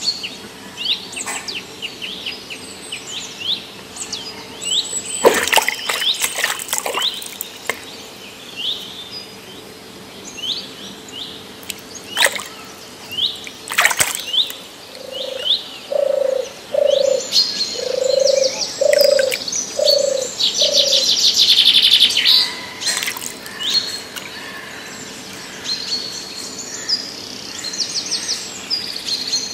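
Birds chirping with repeated short rising calls. About halfway through, a run of six low notes about a second apart. Occasional sharp clicks.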